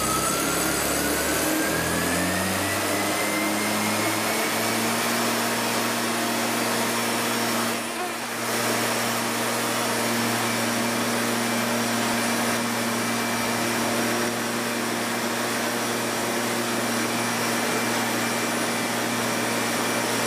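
Gas-powered leaf blower's small engine revving up over the first few seconds, its pitch rising, then running steadily at high speed as it blows air under the hovercraft's skirt to lift it. The sound dips briefly about eight seconds in.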